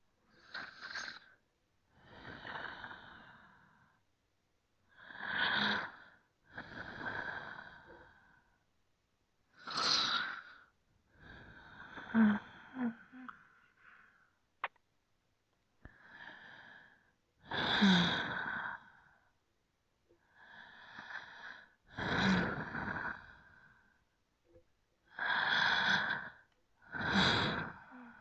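Slow, deep human breathing: about a dozen separate breaths in and out, each one to two seconds long, with short silent gaps between them. A few of the breaths carry a slight voiced, low-pitched edge.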